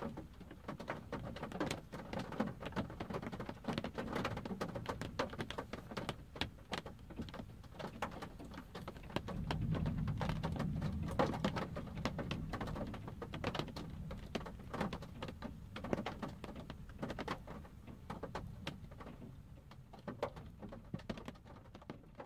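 Raindrops pattering on a car's roof and windshield, heard from inside the car as an irregular stream of small taps. A low rumble of distant thunder swells through the middle for several seconds.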